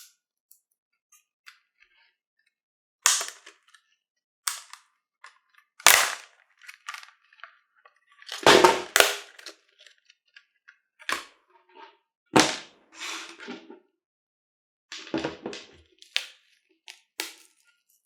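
Packaging of a Yale luggage padlock being handled close to the microphone: a string of separate sharp cracks and crinkles with short silences between them, the loudest about six and nine seconds in.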